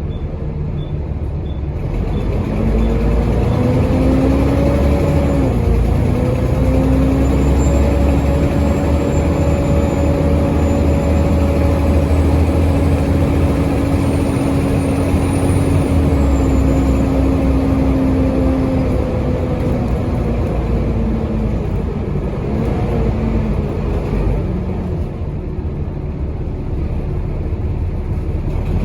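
Volvo B7TL bus's six-cylinder diesel with ZF automatic gearbox pulling away. The engine note rises, drops with a gear change about five seconds in, then climbs and holds before falling away near the end. Over it runs the loud, high turbo whistle that gives this tired bus its hoover-like sound, rising and fading in the middle.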